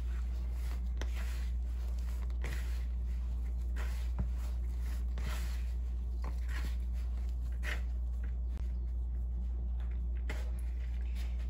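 Hands mixing and squeezing a crumbly flour-and-requesón dough in a plastic bowl: soft, irregular rustling scrapes, over a steady low hum.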